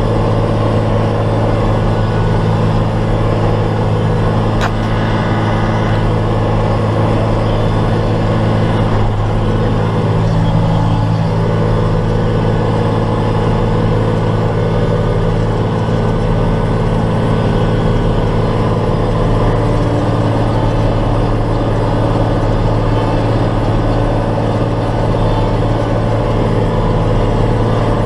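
Large diesel tractor engine running steadily under even load, a constant low drone with no change in speed.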